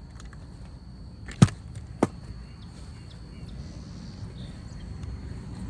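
Two sharp knocks about half a second apart from a color guard practice rifle being tossed and caught.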